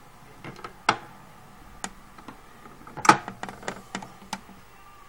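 Record player's tonearm mechanism clicking and knocking as the arm lifts off the 45 rpm single and swings back to its rest at the end of the side. The clicks come irregularly, with a louder clack about a second in and the loudest knock about three seconds in.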